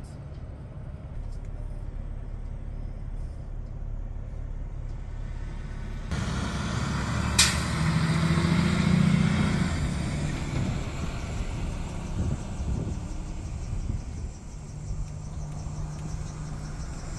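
A Mack front-loader garbage truck's engine running as the truck drives off and then passes. It is loudest about nine seconds in and fades after, with one sharp snap about seven seconds in.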